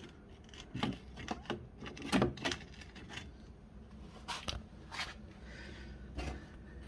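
Scattered light clicks and knocks of things being handled and set down, about eight in all, irregularly spaced.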